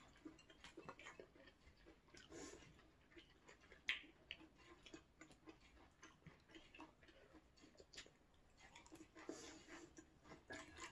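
Faint eating sounds: soft chewing and scattered small mouth clicks, with a few short breathy puffs.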